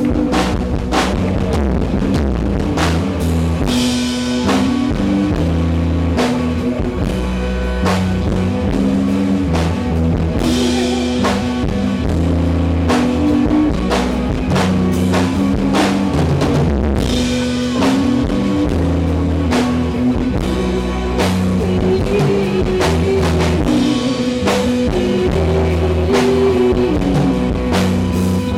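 Live rock band playing a song: a drum kit keeps a steady beat under sustained electric guitar and bass.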